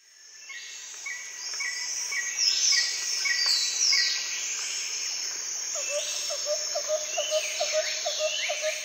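Several birds singing and chirping over a steady background hiss, fading in at the start, with quick high whistles that sweep downward. From about six seconds in, a lower short note repeats about four times a second.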